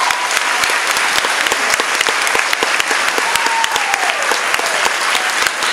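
A large audience of schoolchildren applauding, dense and sustained, with one high note sliding downward about three seconds in.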